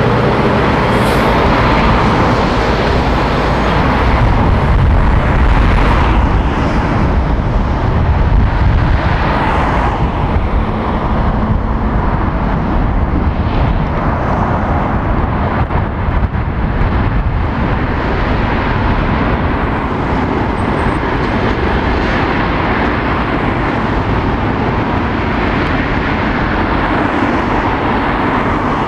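Road traffic: an articulated bulk tanker lorry's diesel engine and tyres as it pulls past close by and away from the roundabout, then a steady mix of passing cars and lorries.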